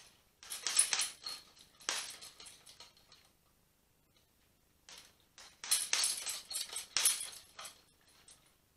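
Boxing gloves striking a hanging heavy bag in two flurries of punches, each a quick run of sharp slapping hits. The first comes just after the start and the second a little past halfway.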